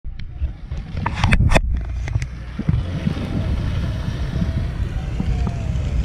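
Wind rumbling on the microphone, with a cluster of sharp clicks about a second in.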